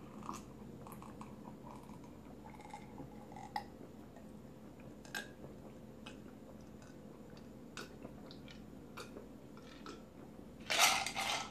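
A person drinking a cold drink with ice from a glass in long draughts: soft swallowing and small clinks of ice against the glass. Near the end comes a louder rush of noise.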